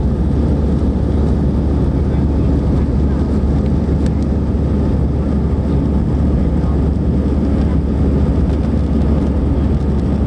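Steady jet airliner cabin noise: engine and airflow drone with a strong deep hum, heard from inside the passenger cabin in flight.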